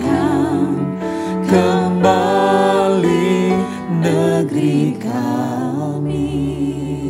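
Slow Indonesian worship song: a voice singing long held notes with vibrato over a sustained instrumental backing.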